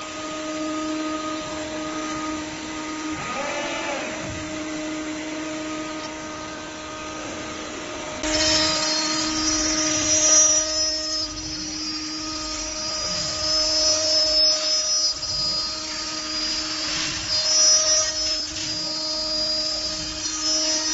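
GC2040 5-axis CNC router running, with a steady spindle whine. About eight seconds in it gets louder as cutting starts: a high hissing noise with a shrill whine joins the spindle tone, swelling and easing as the tool works.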